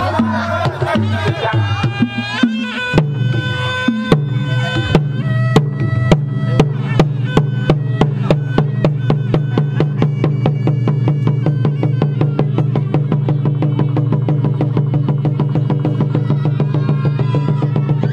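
Khmer pinpeat ensemble playing: drum and mallet strokes start sparsely and quicken into a fast, even beat over a sustained low tone. A voice is heard in the first second or so.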